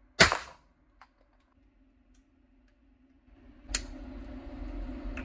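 A single loud 9mm shot from a CZ Scorpion Evo, dying away quickly, followed a second later by a small click. Past the midpoint a steady hum comes up and a second, quieter shot sounds.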